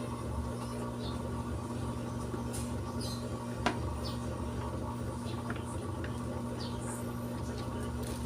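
A few light clicks and one sharp click about three and a half seconds in, from hand work on the scooter's air-filter housing, over a steady low hum.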